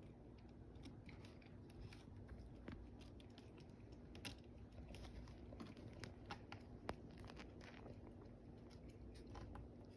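Faint, irregular small clicks and crunches, scattered a few to the second, over a low steady hum.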